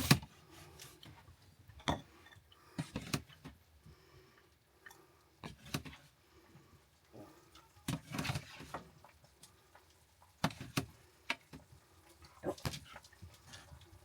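Scattered light clinks and knocks of a serving spoon against pans and bowls as a stir-fry is dished up, a few seconds apart with a short cluster of them past the middle.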